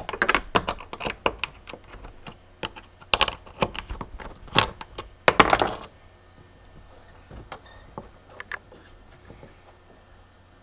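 Handling clatter: a brass cap and its wooden clamping jig being taken apart on a CNC router bed. Metal and wood clink and knock in quick succession for about six seconds, then a few scattered clicks.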